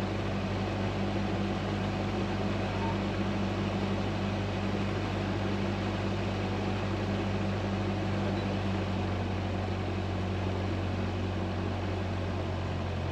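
Single-engine Cessna's piston engine and propeller running steadily on the ground, a constant low drone heard inside the cockpit.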